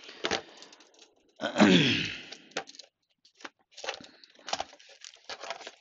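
Scattered sharp clicks and knocks of a digital caliper being taken out of its box and handled.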